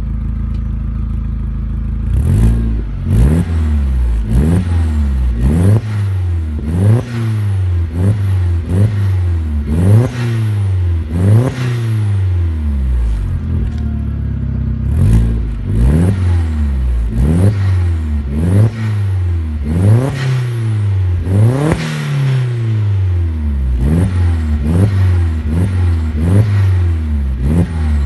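Dacia Logan's 1.8 20-valve engine, stationary and running through a Turboworks exhaust. It idles steadily for about two seconds, then is revved over and over: each rev climbs quickly and falls back, with sharp pops and crackles from the exhaust at the peaks. This is a launch-control style rev-and-cut.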